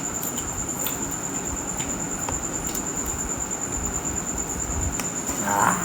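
Steady, high-pitched cricket trill running throughout, over soft eating noises: small clicks, with a brief louder sound near the end.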